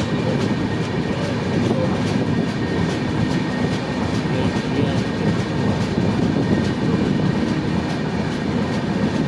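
Passenger train running along the track: a steady rumble of wheels on rails, with regular faint clicks of the wheels passing over rail joints.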